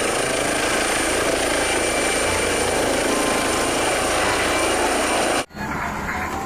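Helicopter rotor sound for a toy helicopter: a steady, dense rotor noise with a thin high whine over it, which cuts off abruptly about five and a half seconds in. A few lighter clicks follow.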